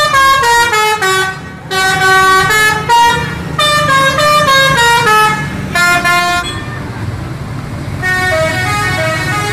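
Multi-tone 'telolet' musical horn of an Indonesian coach bus playing quick stepping melodic phrases, over low traffic noise. Near the end a second bus's horn plays a quieter run of notes.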